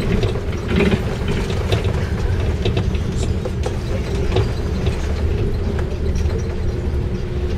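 Cabin noise inside a moving bus: steady engine and road rumble with frequent small rattles and clicks as it drives over a rough, unsealed road.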